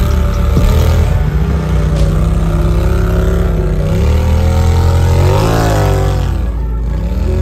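Side-by-side UTV engine running under load, revving up and easing off so its pitch rises and falls, with a quick dip and rise about five to six seconds in.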